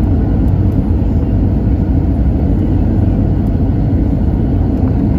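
Steady low rumble of an Airbus A320-200's engines and airflow, heard from inside the passenger cabin, with no sudden changes.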